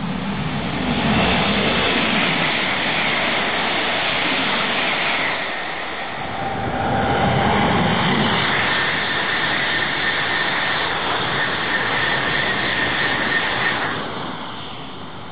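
ICE 3 high-speed trains passing at about 300 km/h: a loud rushing roar of air and wheels that builds, dips briefly about six seconds in as one pass gives way to the next, and falls away near the end. A thin high whistle runs through the second pass.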